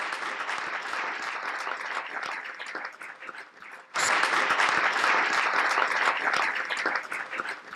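Audience applauding, a dense patter of many hands clapping that grows louder about four seconds in after a brief dip.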